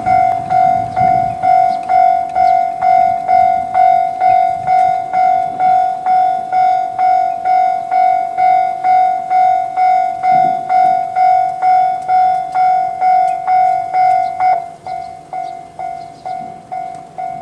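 Japanese railway level-crossing alarm of the JR standard type: an electronic bell tone striking about twice a second. About fourteen and a half seconds in, it drops to a lower volume and keeps striking.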